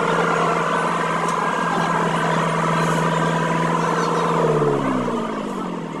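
Asphalt paver's diesel engine running steadily, its pitch falling over the last second and a half as it slows down.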